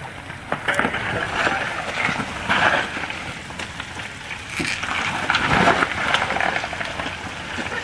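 Loose rocks and gravel crunching and clattering under the tyres of a Jeep Wrangler crawling down a rocky trail. It comes in uneven surges, louder about a third of the way in and again past two thirds.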